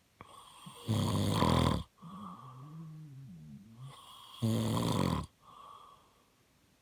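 A man snoring: two loud snores, each about a second long and some three and a half seconds apart, with a quieter, wavering hum on the breath between them.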